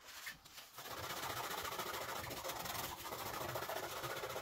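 Fine steel wool scrubbing an oil-wetted iron meteorite slice, a steady rasping scrub that starts about a second in, as the rust is rubbed off the metal.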